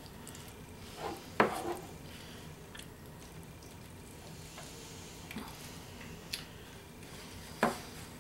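Kitchen handling sounds as stuffed pork chops are worked on a glass cutting board: a few isolated sharp clicks and knocks, the loudest about a second and a half in and another near the end, over a faint steady background.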